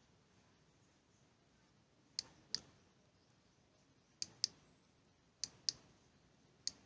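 Push-button switch on a mini LED flashlight clicking in quick press-and-release pairs, about four times a second or so apart, as the light is switched on and off.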